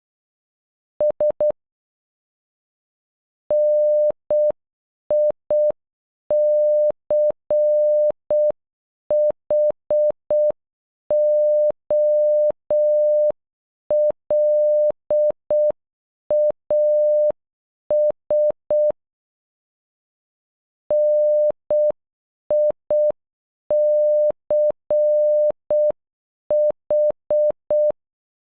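Morse code beeps: one steady electronic tone keyed into short dots and long dashes, spelling NICHOLAS (-. .. -.-. .... --- .-.. .- ...) at a slow, half-speed pace. A few quick dots come first, then the whole word plays, and after a pause of about two seconds it begins again.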